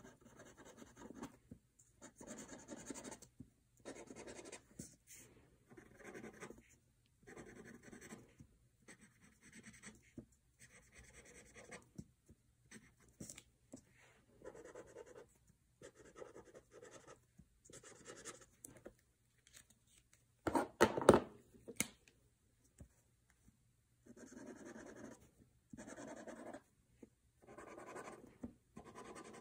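Felt-tip markers scratching on paper in short, repeated strokes as stripes are drawn on the trunks, first with a black marker and then with a yellow one. A brief, louder clatter comes about two-thirds of the way through.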